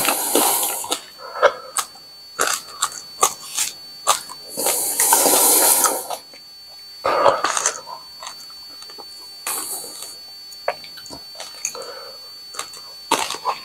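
A man chewing the Paqui One Chip, a very hot chili tortilla chip, with wet mouth clicks and smacks. Three long hissing breaths are blown through the mouth as the heat sets in: one right at the start, one around five seconds in and one near ten seconds.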